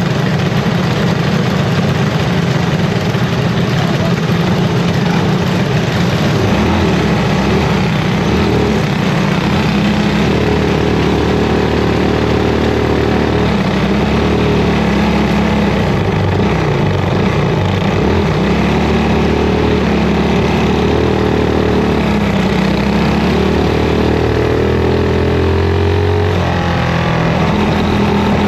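Racing go-kart engine heard close from onboard, running loud with its pitch rising and falling as the throttle changes, with other kart engines close by.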